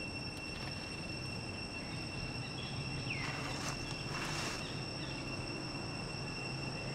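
Insects droning steadily at a high, even pitch, with a brief noisy burst about halfway through.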